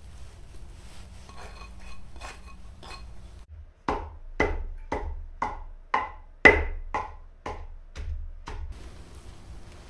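Wooden pestle pounding blanched mugwort in a stone mortar: about ten thumps at roughly two a second, starting about four seconds in.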